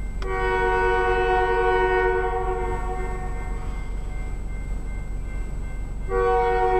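Locomotive air horn sounding a chord of several notes for the grade crossing: one long blast of about three seconds, then a second long blast starting near the end.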